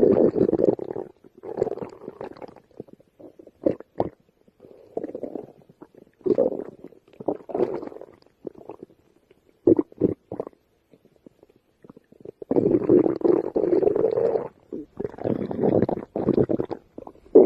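A hungry person's stomach growling and gurgling in irregular rumbles, short ones at first, then a longer growl of about two seconds near the end followed by another.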